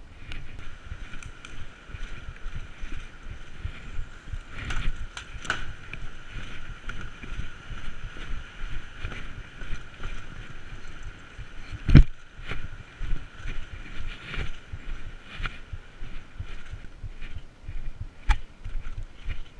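Movement noise of a player carrying an airsoft rifle: irregular footsteps and rustling of clothing and gear. A single sharp knock comes about twelve seconds in, and a smaller click near the end.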